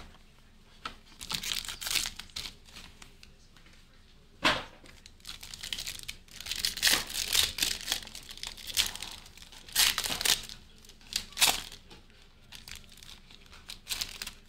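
Trading-card packaging being torn open and crinkled by hand, in irregular bursts of crackling, with a sharp snap about four and a half seconds in.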